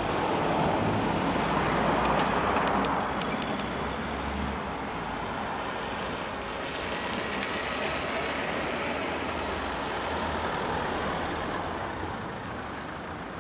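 Road traffic driving over a railway level crossing: a motorcycle and a car pass, with the noise loudest about two seconds in and then slowly fading.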